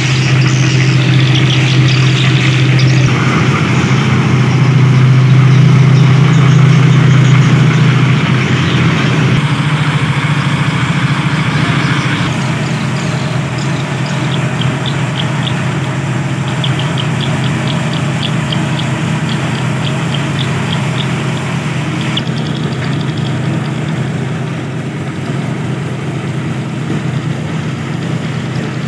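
Drum concrete mixer running steadily: a constant engine hum with the rough churn of the turning drum. It is loudest over the first few seconds and drops somewhat after about twelve seconds in.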